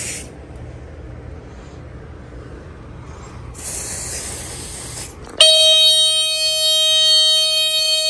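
A spray hisses for about two seconds, then about five seconds in the Notifier Emhart 035-615 smoke alarm goes off, its horn sounding one loud, steady, buzzy tone without a break: the alarm has been set off and works.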